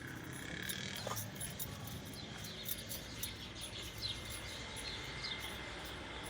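Outdoor ambience of small animals chirping and clicking in quick, irregular succession, over a faint steady high tone.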